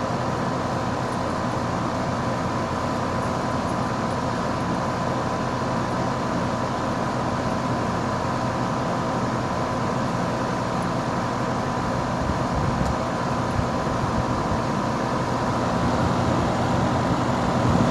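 A 2016 Lennox 2-ton heat pump running steadily in heat mode: an even hum and rush of air with a thin steady tone over it.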